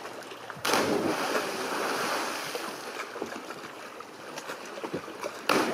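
A person plunging feet-first into a lake from a cliff jump: a sudden splash less than a second in, then a wash of water and wind noise on the microphone that slowly dies down. A second sudden burst of noise comes near the end.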